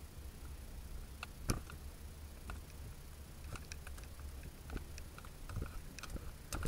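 Car rolling slowly down a street, heard from inside the cabin: a steady low rumble with scattered light clicks and knocks from the suspension, the sharpest about a second and a half in and near the end.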